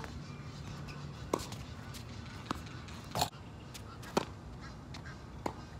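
Tennis ball struck by rackets and bouncing on a wet hard court: a string of single sharp pops roughly a second apart, the loudest a little after three and four seconds in.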